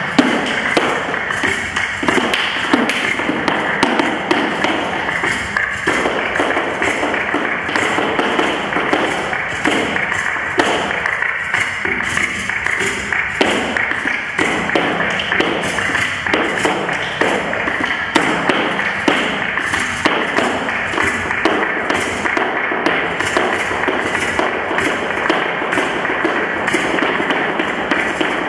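Flamenco footwork (zapateado): heeled flamenco shoes striking a wooden dance floor in quick, dense heel and toe taps. Flamenco music plays underneath.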